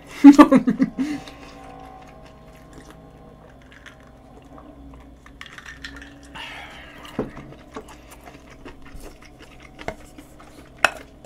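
Cutlery clinking and scraping against a dish while eating, with a few sharper clinks later on.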